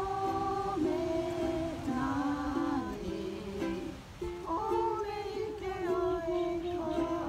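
A small group of voices singing a song with long held notes, with ukulele accompaniment.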